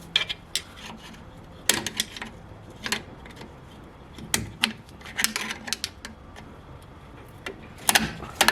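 Irregular sharp metallic clicks and clinks, in small clusters a second or so apart, from hand work fitting the handbrake cable on a rear drum brake.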